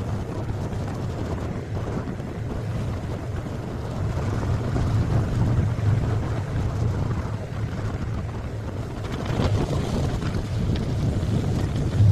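A ferry's engine drones steadily and low, with wind blowing across the microphone in gusts that swell twice.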